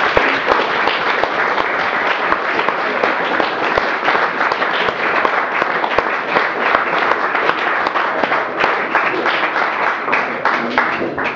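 Small audience applauding, a dense steady clapping that thins out and fades near the end.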